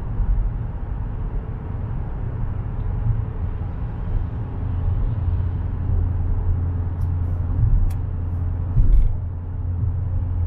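Dodge Challenger cruising on a wet highway, heard from inside the cabin: a steady low drone of engine hum with tyre and road noise. A few short clicks and a thump come near the end.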